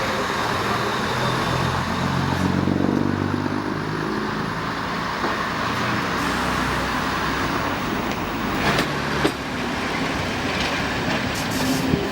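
Diesel locomotive running, its engine note swelling about two to four seconds in over a steady rumble and rail noise, with two sharp clicks about nine seconds in.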